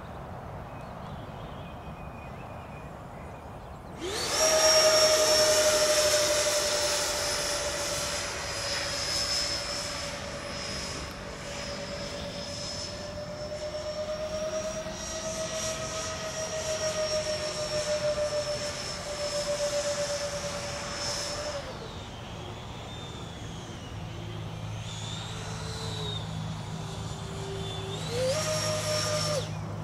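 Twin electric ducted fans of a Freewing MiG-29 RC jet whining as it flies. The whine comes in abruptly and loud about four seconds in, holds steady with small pitch swings, drops away about two-thirds through, and rises again near the end.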